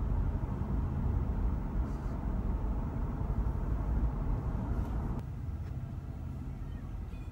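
Steady low rumble of road and engine noise inside the cabin of a moving vehicle. About five seconds in it suddenly drops to a quieter, duller level.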